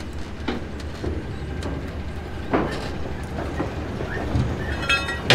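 Rail freight terminal machinery: a steady low hum with scattered metallic knocks and clanks, and a brief high squeal near the end.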